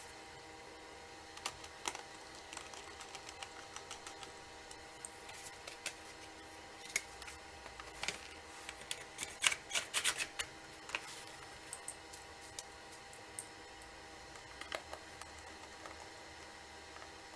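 Irregular light clicks and taps of hands working on a laptop's hardware. A quicker run of clicks comes about eight to eleven seconds in, over a faint steady hum.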